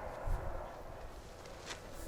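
Strong wind buffeting the microphone, with a low rumbling gust about a third of a second in and a short sharp click near the end.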